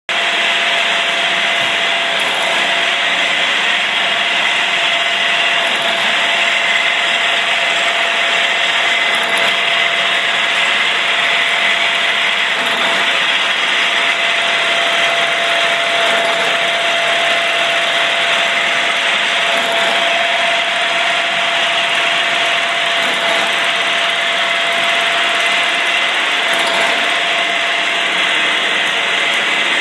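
A 1996 Davenport extended-bed multi-spindle automatic screw machine running: a loud, steady machine noise with a constant whine through it.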